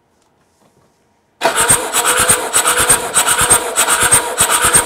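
Starter motor cranking a Mercedes-Benz five-cylinder turbo diesel over for a compression test on cylinder one, with the engine not firing. A fast, rasping churn with even compression pulses starts suddenly about a second and a half in.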